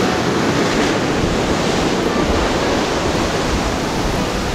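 Ocean surf breaking and washing up a sandy beach, a steady rush of noise, with wind buffeting the microphone.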